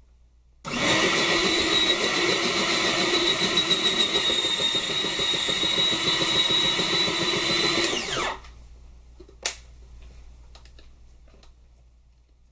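Electric salad maker's motor running steadily for about seven seconds with a high whine, then winding down in pitch as it is switched off, followed by a single sharp click.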